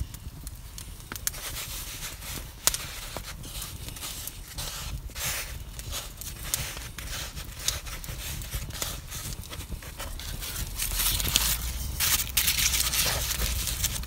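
Hands kneading and shaping bread dough on a floured plywood board: soft pats and knocks of the dough against the wood. Near the end comes a louder stretch of rustling and crinkling, the sound of baking paper being handled.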